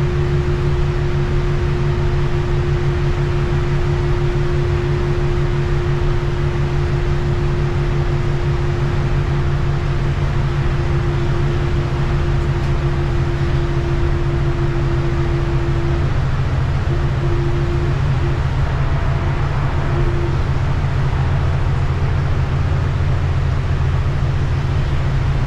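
Interior of a bus cruising on a wet highway: steady engine drone and road noise, with a steady whine above it that breaks up and drops out a little over halfway through.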